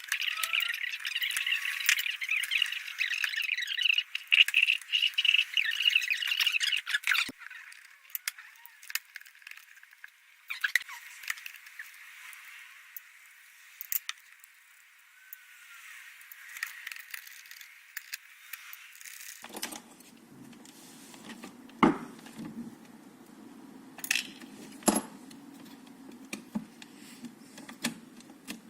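Scattered small clicks and light metallic clinks of small parts and tools being handled, over a steady hiss that stops about seven seconds in; a low hum starts about twenty seconds in.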